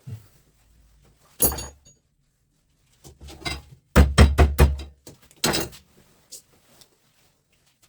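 Hammer blows on an electric fan motor being knocked apart for its copper: a couple of single knocks, then a quick run of about five blows around four seconds in and one more just after.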